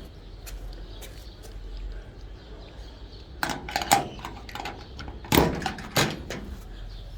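A few sharp knocks and clicks in two short clusters, about three and a half and five and a half seconds in, over a low steady rumble.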